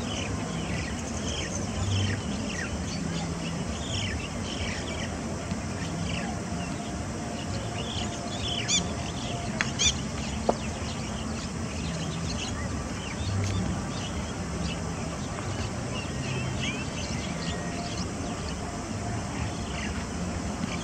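Small birds chirping, many short quick chirps that come thick and fast, with a few louder ones about halfway through, over a steady low background hum.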